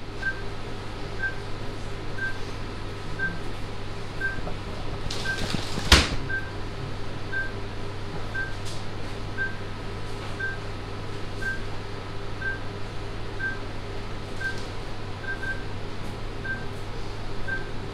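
Patient monitor in a cardiac catheterisation lab beeping steadily about once a second, in time with the heartbeat, over a low steady hum of the lab's equipment. A brief hiss and a sharp click come about six seconds in.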